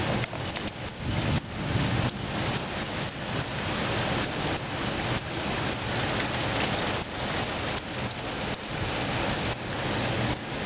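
Heavy rain pouring down in a dense hiss that swells and eases.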